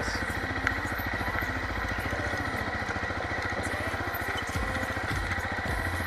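Motorcycle engine running steadily under way, a fast even pulse of firing strokes, with a steady high whine alongside.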